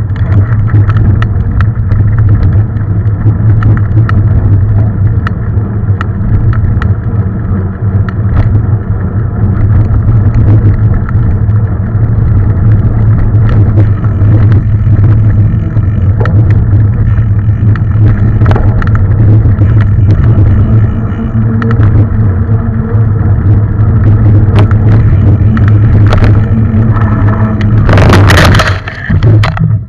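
Mountain bike ridden over a rough trail, heard from a camera on the bike or rider: a steady low rumble of wind and tyres with frequent rattles and knocks from the bike. A loud harsh burst comes near the end.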